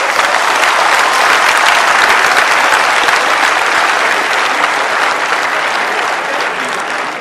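A large audience applauding: dense, steady clapping that swells in at the start and eases off slightly near the end.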